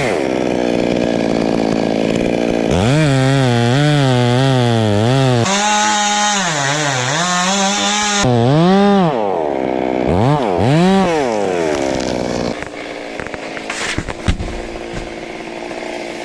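Two-stroke Stihl chainsaw cutting wood, its engine pitch sagging under load and rising again as the throttle is worked. Two short revs come about two-thirds through, then it drops back to a quiet idle, with a sharp thump near the end.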